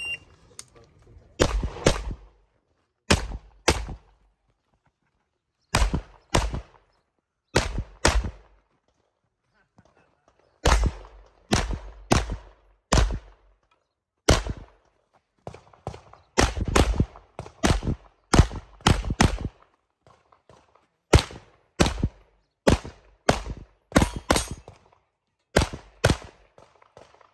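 Handgun shots fired in quick pairs and short rapid strings, with breaks of a second or two between groups: a practical-shooting competitor shooting a course of fire.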